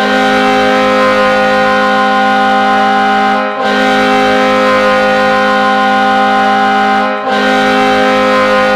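Ice hockey goal horn blaring a steady multi-note chord in long blasts, broken twice by short gaps about three and a half seconds apart.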